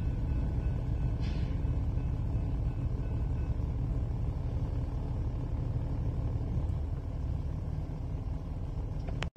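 Low steady rumble of a BNSF freight train rolling away from the crossing after its last locomotive has cleared, easing slightly toward the end.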